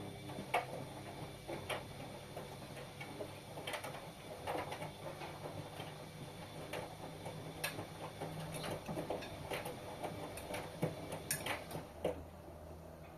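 Washing machine running a wash, its drum turning over a steady motor hum with irregular clicks and knocks from the tumbling load. The hum drops lower about twelve seconds in.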